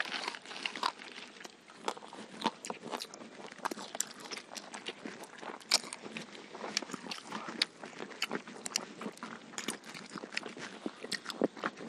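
Several people chewing and biting into fried chicken and biryani eaten by hand, with many short, irregular crunches and mouth clicks.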